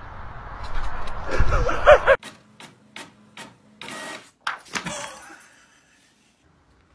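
A printer feeding out a sheet of paper: a series of sharp clicks and short whirring bursts that stop about five seconds in. Before it, about two seconds of a different, noisy sound that cuts off suddenly.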